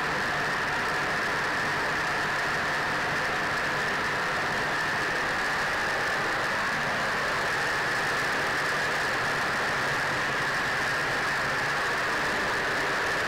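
Twin Wright R-2600 radial engines and propellers of a B-25 Mitchell in flight, a steady, unchanging drone heard from inside the bomber's nose compartment.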